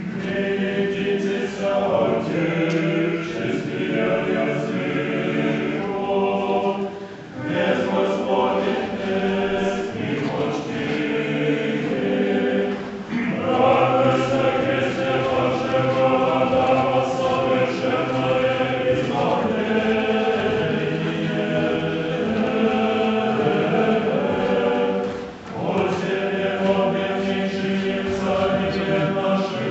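Unaccompanied choir singing Russian Orthodox liturgical chant in several parts, holding sustained chords, with short breaks between phrases.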